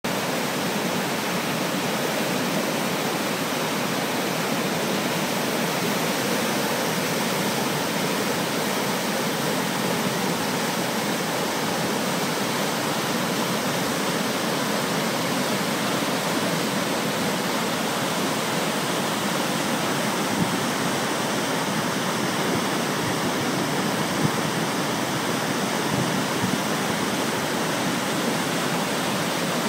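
Snowmelt-swollen river rapids: whitewater rushing steadily over boulders and rock slabs.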